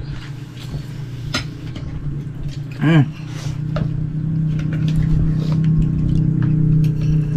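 An engine running steadily, its hum coming in about halfway and growing louder, with scattered clinks of cutlery and dishes at the table and a brief voice about three seconds in.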